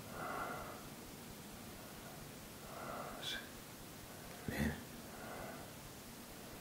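Slow, heavy breathing of a man lying under hypnosis, three breaths about two and a half seconds apart, with a short knock about four and a half seconds in.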